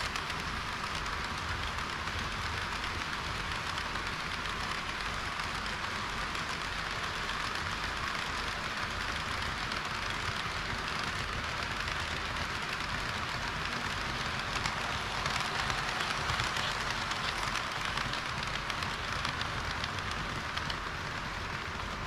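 HO-scale model trains, a KiHa 40 railcar and a long rake of tank wagons, rolling over plastic-roadbed sectional track: a steady rushing hiss of wheels on rails with a low rumble underneath, swelling slightly about two-thirds of the way through.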